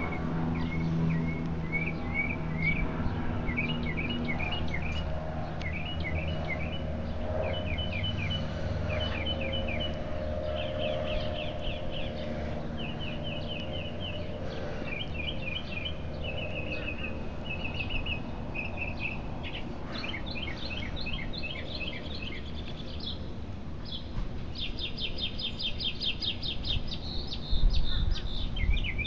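Small birds chirping in repeated quick trills, over a steady low background rumble.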